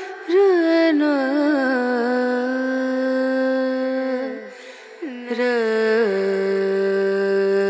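A solo voice singing a slow Carnatic-style melody: long held notes joined by ornamented slides. It drops away briefly about four seconds in before the next phrase begins.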